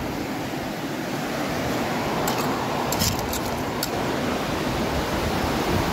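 River water rushing steadily over a shallow stony bed, with a few brief high ticks about two to four seconds in.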